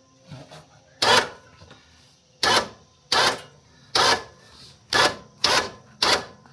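An ATV winch jogged in short bursts to raise a mulcher on its plow-mount cable. There are seven quick grinding pulls, each about a third of a second long, at uneven gaps.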